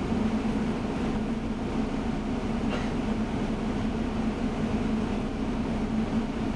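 Inside a moving bus: a steady engine drone and running noise with a constant low hum.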